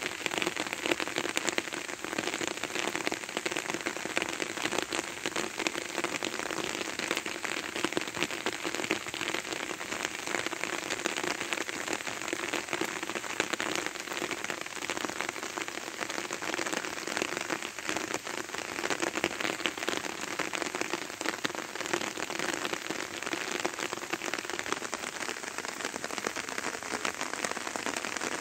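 Steady patter of rain falling on grass and leaves, a dense, even crackle of many small drops.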